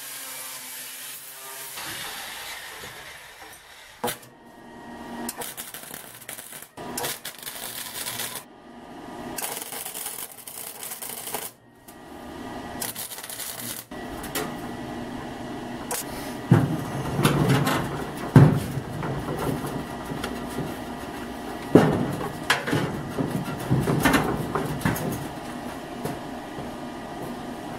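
An angle grinder works on sheet steel in the first part. Then a Chicago Electric wire-feed welder lays tack welds on sheet steel, with a steady crackle and several sharp knocks in the second half.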